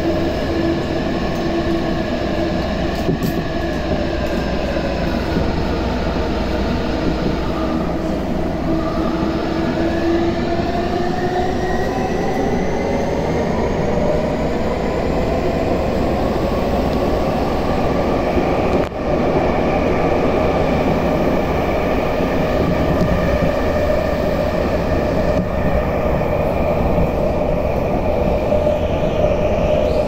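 Tokyu 5050 series train's Hitachi IGBT-VVVF inverter and traction motors whining, heard from inside the car. Several tones shift and climb in pitch about ten seconds in, then hold steadier, over a steady wheel and rail rumble. There is a single sharp click a little past halfway.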